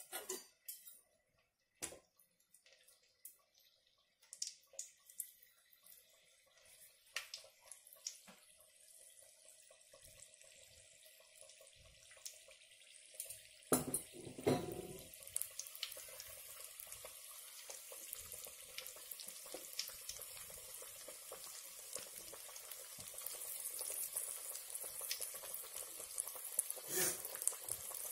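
Vadai deep-frying in hot oil in an aluminium kadai: scattered crackles and pops at first, then a steady sizzle that builds and grows louder through the second half. A couple of louder knocks come about halfway through.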